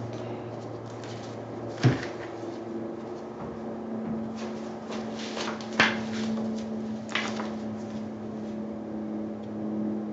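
Paint bottles being handled and set down while pouring acrylic paint: two sharp knocks, about two and six seconds in, with a few lighter clicks, over a steady electrical hum.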